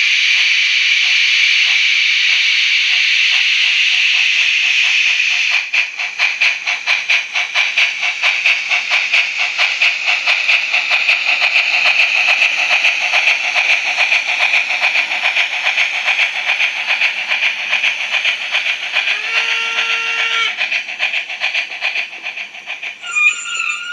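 ESU LokSound sound decoder in a Roco model of a Soviet steam locomotive, playing its steam sounds through the model's small speaker: a steady hiss with faint chuffs that quicken, then loud, rapid chuffing from about five seconds in. A short whistle sounds about nineteen seconds in, and another whistle-like tone comes near the end.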